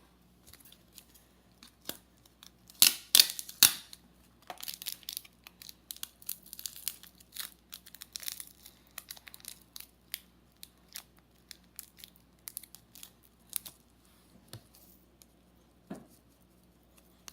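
Crinkling and crackling from handling the slime ingredients, with a few louder tearing-like strokes about three seconds in, then many small scattered crackles.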